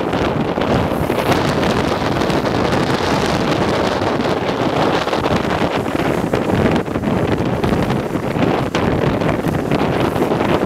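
Wind buffeting the microphone of a fast-moving camera, a loud steady rush of air with no let-up.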